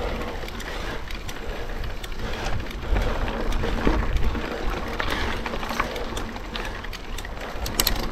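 Mountain bike being ridden up a rough dirt trail: steady tyre and wind rush with frequent clicks and rattles from the bike, picked up by a chest-mounted action camera.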